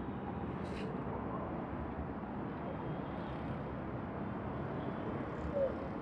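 Steady outdoor traffic noise, a continuous rumbling hum with no single engine standing out. There is a brief hiss about a second in and a short squeak near the end.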